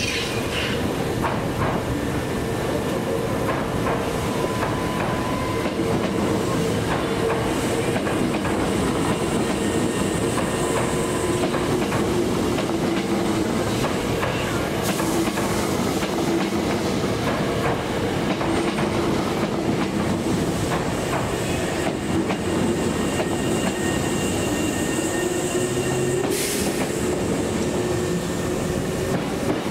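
Hankyu 7000-series electric train running slowly over the points and along the platform, its wheels clattering over the rails with a steady hum, and a short hiss near the end.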